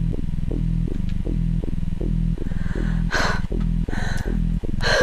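A low, droning hum that throbs about three times a second, with several breathy rasps over it from about two and a half seconds in.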